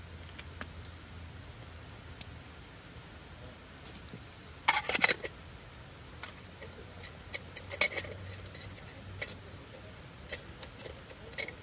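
Sharp clinks and rattles of small hard objects being handled. The loudest cluster comes about five seconds in, with more scattered clicks around eight seconds and a few single ones after.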